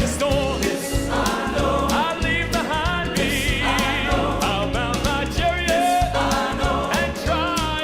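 Southern gospel male vocal quartet singing a song in close harmony over instrumental backing with a steady bass line and beat.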